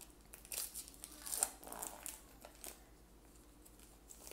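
Plastic wrapper of a baseball card pack crinkling and tearing as the pack is opened by hand. The cluster of crackles comes in the first two to three seconds, then dies down to faint handling.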